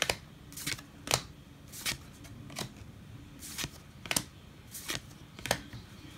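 Trading cards being flipped one by one through a stack of 2022 Topps baseball base cards, each card slid off the front giving a short papery swish. There are about nine of them, roughly one every two-thirds of a second.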